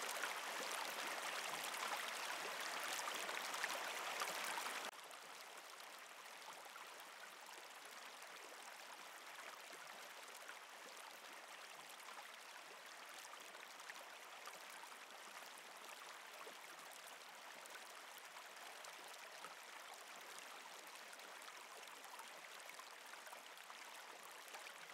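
Faint running-water ambience, a steady hiss-like flow that drops abruptly to a quieter level about five seconds in.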